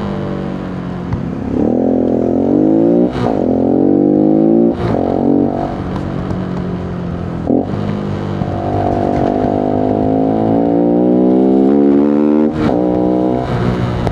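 Voge 125R motorcycle engine accelerating through the gears, its pitch rising in runs broken by short dips at each upshift, about four times.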